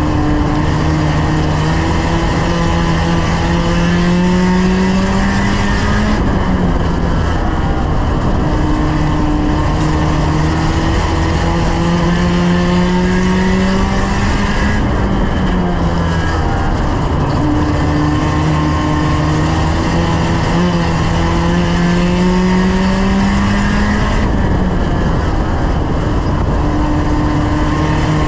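Small 1-litre stock car engine heard from inside the stripped race car's cabin, running hard under load. Its pitch climbs steadily for several seconds and then drops back, three times, roughly every nine seconds, over a steady hiss of road and wind noise.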